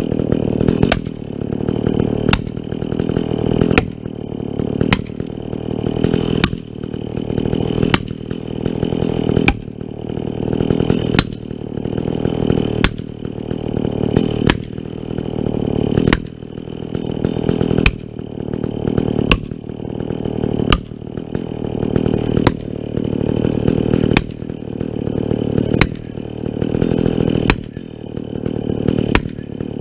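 Chainsaw engine running steadily, broken by sharp knocks about once or twice a second.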